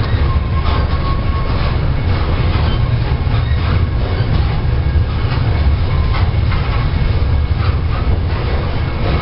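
Freight train rolling past: a steady low rumble of the cars, with irregular clacking of wheels over rail joints.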